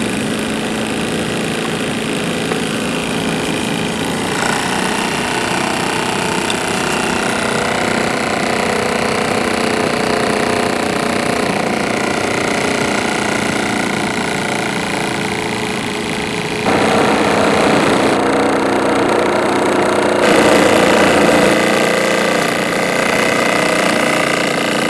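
Small marine steam engine of a model steam launch running steadily, with steam from its gas-fired vertical boiler. The sound gets louder in two steps past the middle.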